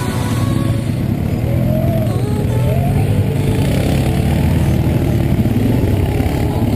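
ATV (quad bike) engine running hard off-road, its pitch rising and falling as it is revved.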